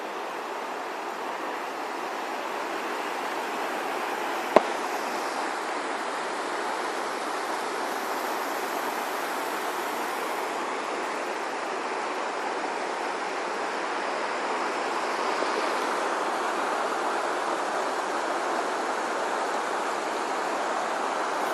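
Waterfall, a steady rush of falling water that grows slightly louder. A single sharp click about four and a half seconds in.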